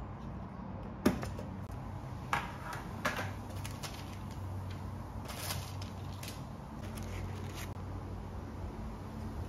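Metal lid of a Kjeldsens butter cookie tin coming off with a sharp clack about a second in, then two lighter metal clinks. After that the paper liner inside rustles and crinkles as it is lifted out.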